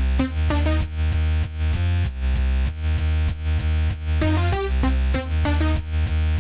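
Electronic background music: a heavy bass line and synthesizer notes over a steady beat.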